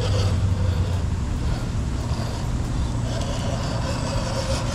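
Electric motor and gear drivetrain of an Axial SCX10 II rock crawler running as the truck crawls over rocks, over a steady low hum; the motor note grows stronger about three seconds in.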